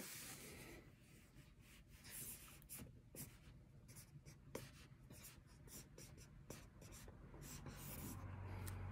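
Yellow highlighter pen writing in cursive on notebook paper: faint, quick, irregular strokes of the felt tip scratching across the page. A low hum comes in near the end.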